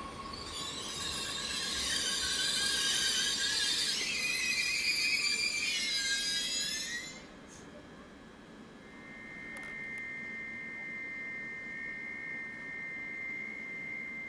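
SNCF Z 27500 (Bombardier AGC) electric multiple unit braking into a station: a loud, shrill squeal of many high tones that stops abruptly about seven seconds in. A steady single high tone follows as the train draws to a halt.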